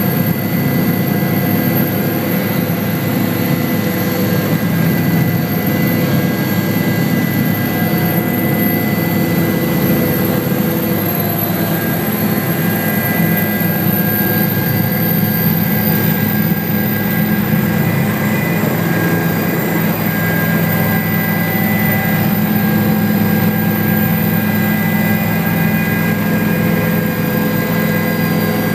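Helicopter engine and rotor noise inside the cabin: a loud, steady din with a constant high whine over a low hum, as the helicopter comes in to land.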